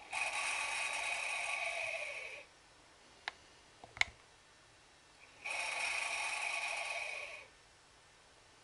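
Breathing through a black rubber anesthesia mask and corrugated breathing hose: two long breaths, each about two seconds, with two sharp clicks between them.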